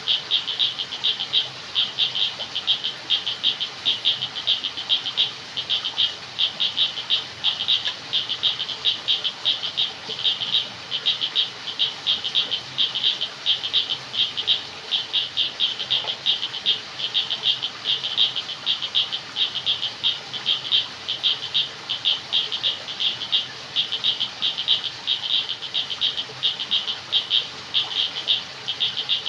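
A night chorus of frogs calling, a dense run of rapid, high-pitched pulsed calls repeating in quick clusters over a faint steady background hiss.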